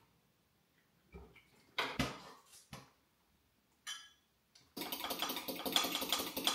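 Pancake batter being whisked by hand in a measuring jug: a rapid run of clinks and scrapes of the utensil against the jug, starting about five seconds in. Before it, a few short knocks and rustles as the milk and flour go in.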